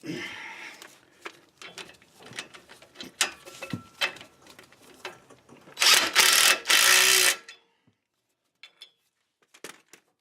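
Clicks and rattles of tools and hardware being handled, then a power ratchet running in three quick spurts over about a second and a half, spinning an axle retainer nut down.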